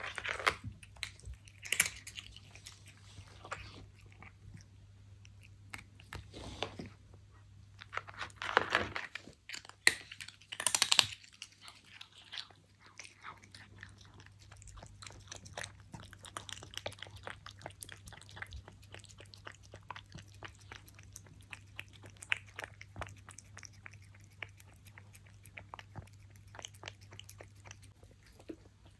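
Maine Coon cat eating up close: loud crunching bites on dry treats during the first ten seconds or so, then quieter, rapid wet smacking and chewing as it eats the soft salmon wet-food topping.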